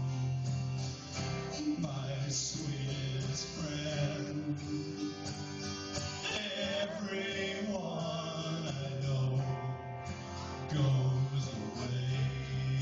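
A man singing while playing a guitar, his voice rising and falling over sustained chords.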